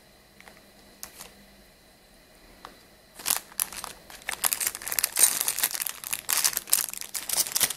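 Clear plastic bag crinkling as it is handled, a few faint clicks at first, then crackling steadily from about three seconds in.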